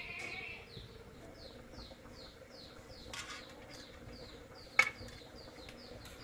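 A knife cutting a boiled egg on a steel plate, with a brief scrape about three seconds in and one sharp click against the plate near the end. Behind it, a small bird chirps repeatedly, short high falling chirps about three a second.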